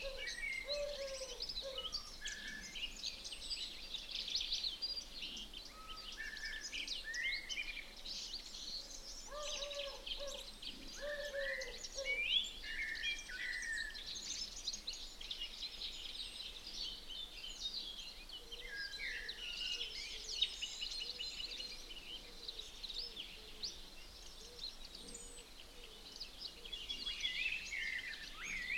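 Several songbirds singing at once: a steady, overlapping mix of quick high chirps and trills, with lower whistled notes now and then, over faint outdoor background noise.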